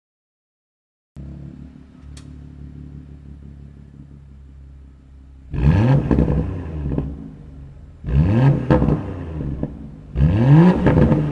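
2017 BMW X4 M40i's turbocharged 3.0-litre straight-six idling. It starts about a second in, then is revved three times, each rev rising quickly and falling back to idle.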